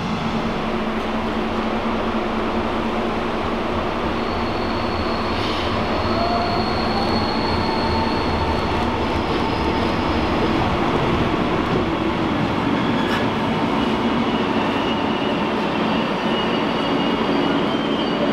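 Double-deck electric train running on the rails: a steady rumble, with a whine that rises in pitch about six seconds in and faint high wheel squeals later on.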